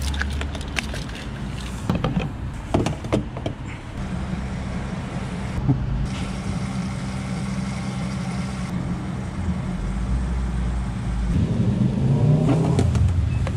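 Clicks and rattles of a keyed locking fuel cap being unlocked and the filler opened. Then, from about four seconds in, the steady hum of a forecourt fuel pump dispensing diesel into a motorhome's tank. A louder rumble builds near the end.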